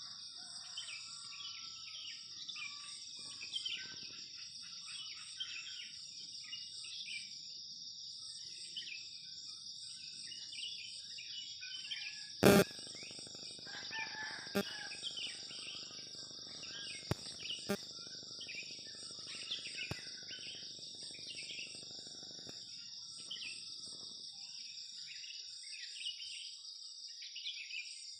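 Steady high drone of insects with many birds chirping over it. A single sharp click comes about halfway through.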